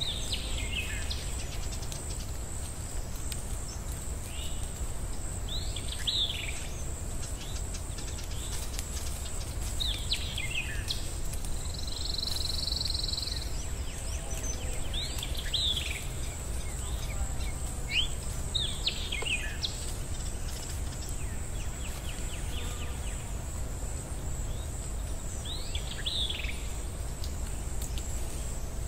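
Bird calls: short downward-sliding chirps every few seconds, over a steady low hum and a faint high whine.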